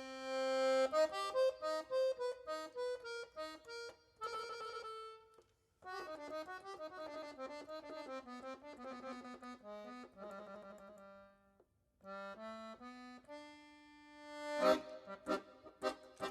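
Accordion music: a lively melody of quick runs and held notes, with two short breaks.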